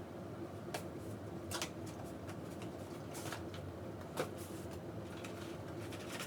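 A CPU retail box being opened and its packaging handled: cardboard and plastic rustling with scattered clicks and taps, the sharpest about four seconds in, over a faint steady hum.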